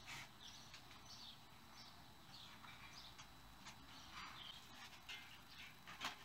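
Near silence: faint scattered bird chirps, small handling sounds, and a light knock near the end as the front wheel comes out of the bicycle's suspension fork dropouts.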